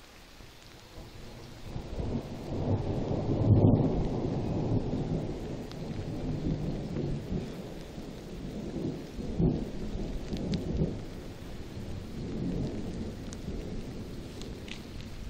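Rolling thunder: a deep rumble builds about two seconds in, is loudest near four seconds, then rolls on with further swells around nine and twelve seconds.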